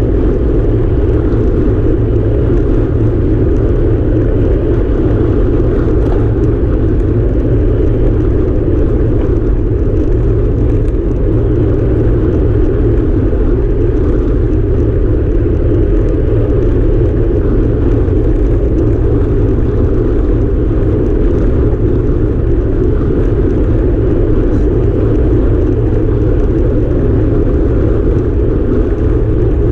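Steady rush of wind over a handlebar-mounted camera's microphone on a time-trial bike at speed, with rumble from the tyres on the asphalt.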